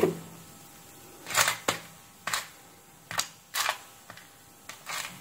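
Small electronic components clicking and rattling in a plastic compartment organiser box as they are picked through with fingers and tweezers. A knock at the very start, then several separate sharp clicks at irregular intervals.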